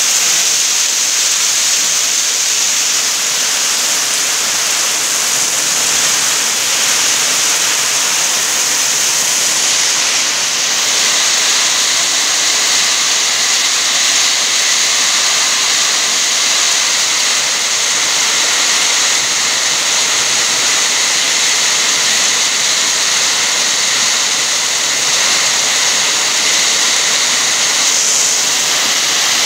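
Very heavy rain pouring down onto a street: a loud, steady hiss of a downpour.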